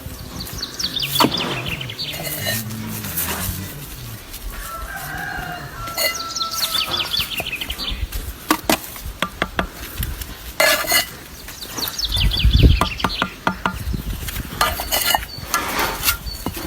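Small birds chirping in repeated quick descending trills, with chicken and fowl calls, over scattered sharp knocks and clicks.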